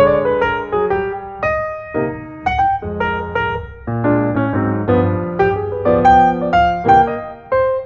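Solo piano background music: single notes and chords struck every half second or so and left to ring and fade.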